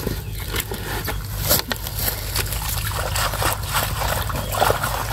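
Shallow water sloshing and trickling as a cloth mesh bag is dunked and rinsed in a muddy ditch, with many irregular small clicks and a steady low rumble underneath.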